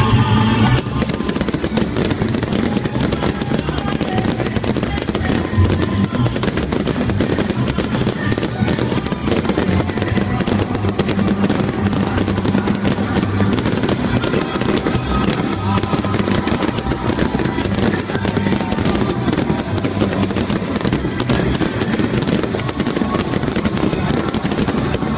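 Fireworks crackling and popping densely and without a break as sparks shower at close range, with music playing underneath.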